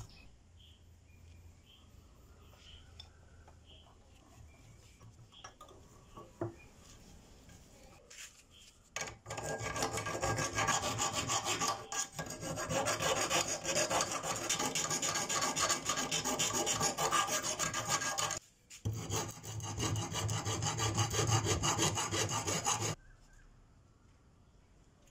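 Round file rasping inside a metal ferrule ring clamped in a bench vise, smoothing and enlarging its bore. It comes in two spells of quick back-and-forth strokes, starting about nine seconds in, the first about nine seconds long, then a brief break and a second of about four seconds.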